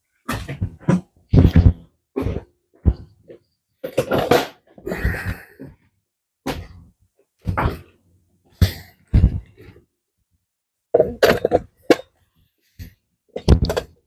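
Irregular series of short knocks and clunks, about a dozen spread unevenly, from tools and parts being handled while working on a motorcycle's throttle cables.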